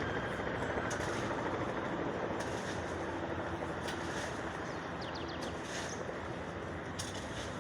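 Police helicopter's rotor and engine, a steady rumbling whoosh as it comes in low to land, easing off slightly over the seconds.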